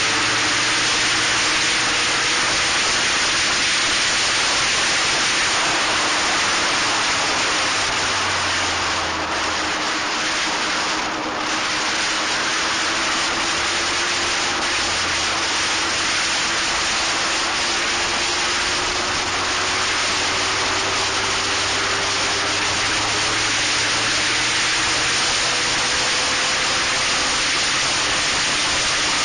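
Steady loud wind rush over an action camera's microphone on a Locost racing car at speed. The car's engine is faint beneath it, its pitch drifting slowly up and down.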